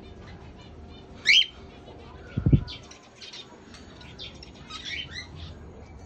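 Cockatiels calling: one sharp high call about a second in, then softer chirps. A loud low thump comes about two and a half seconds in.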